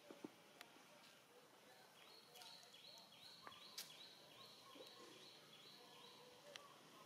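Near-silent outdoor ambience. A faint high chirping repeats evenly, about two to three times a second, for a few seconds through the middle, with a few soft clicks.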